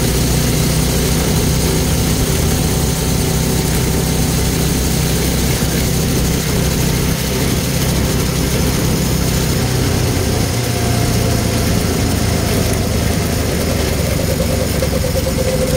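Go-kart's Harbor Freight Predator 212 single-cylinder four-stroke engine running steadily as the kart is driven along a road.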